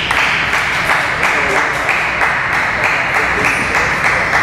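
Spectators clapping after a table tennis rally: a dense, steady patter of many hands.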